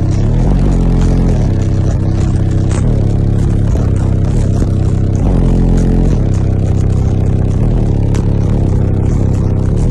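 Bass-heavy music played loud through a car audio system's subwoofers, with deep bass notes changing every second or so.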